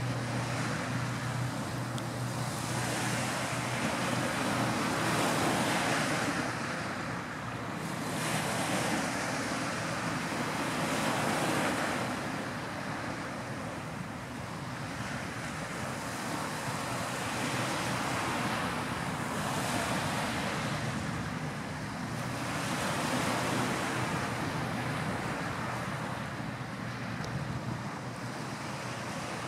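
Surf washing ashore: a steady rushing hiss that swells and fades every few seconds.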